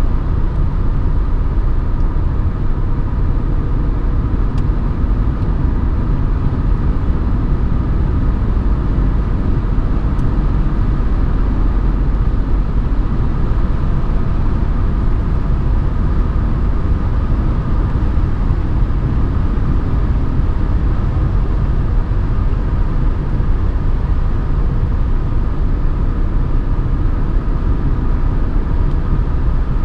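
Mercedes 190D's 2.5-litre five-cylinder OM602 turbodiesel running at a steady cruise, heard from inside the cabin. Its deep, even rumble is joined by a faint steady higher tone.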